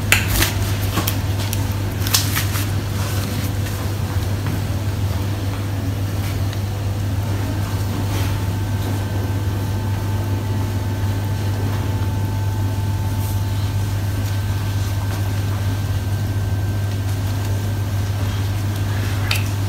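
Steady low background hum with no speech, a few faint clicks in the first few seconds, and a faint thin whine that comes in for a few seconds in the middle.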